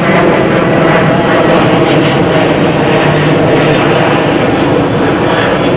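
A loud, steady mechanical drone with a constant low pitch and no speech over it.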